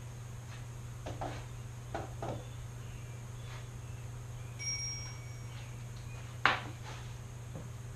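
A few light knocks, a short ringing ping a little past halfway, then one sharp knock near the end, over a steady low hum.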